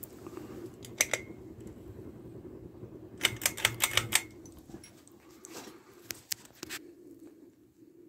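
1997 Harbor Breeze Cheshire ceiling fan running with a steady motor hum. Sharp clicks sound over it: two about a second in, a quick run of about eight around three to four seconds in, and a few fainter ones after.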